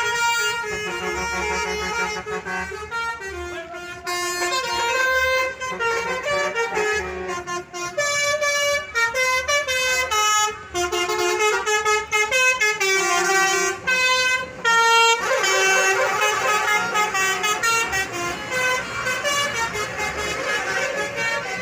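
Indonesian 'telolet' multi-tone bus air horns playing tunes, several horn tones sounding together and stepping quickly from note to note, with a short break about fifteen seconds in.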